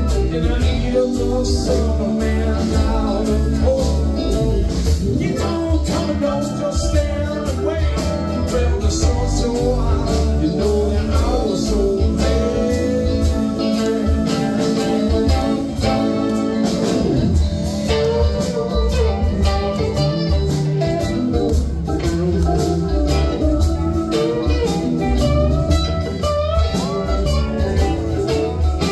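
A live rock band playing loudly: electric guitars over drums and keyboard, with gliding lead-guitar or vocal lines on top.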